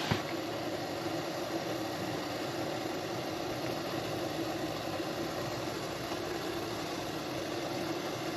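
Portable gas camping stove burning steadily under a pot of water at a full boil: an even rush of flame and bubbling water.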